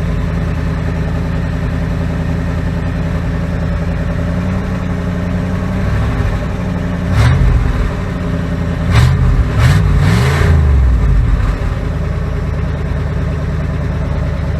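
1979 Ford 400 V8 idling steadily, revved briefly about halfway through and then revved two or three times in quick succession before settling back to idle. It is running better now that the spark plug wires are back in the correct firing order, with fresh oil in it.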